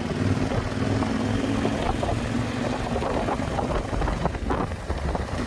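Husqvarna Norden 901's parallel-twin engine running steadily as the bike is ridden, with a rushing wind and road noise over it.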